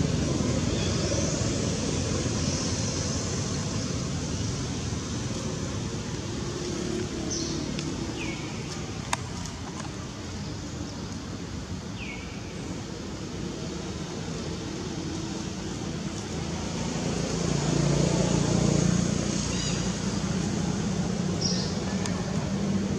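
Outdoor background of a steady low rumble like distant road traffic, swelling for a couple of seconds about two-thirds of the way through. A few short, high, falling chirps come and go, and there is one sharp click about nine seconds in.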